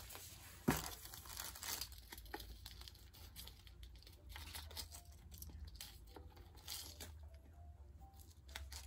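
Faint rustling and small light clicks as a silver chain necklace is handled, taken off its display card and laid onto a velvet bust, with one sharper click just under a second in.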